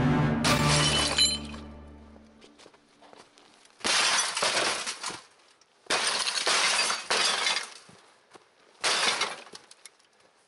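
Music fades out over the first two seconds. Then the glass screen of a CRT television shatters and crunches as it is kicked in with a boot, in three loud bursts about two seconds apart, the middle one longest.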